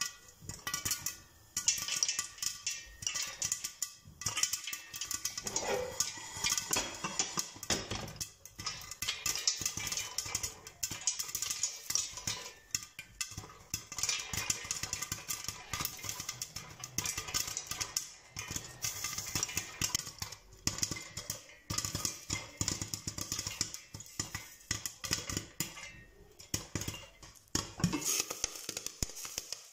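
Popcorn kernels popping in hot oil inside a covered stainless steel pot: rapid, dense pops over the sizzle of the oil.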